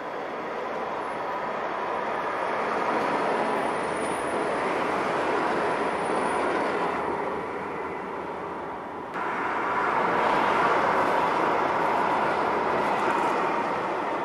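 Strasbourg Eurotram running on its rails: a steady noise that grows louder over the first few seconds, dips slightly, then jumps louder at an abrupt cut about nine seconds in.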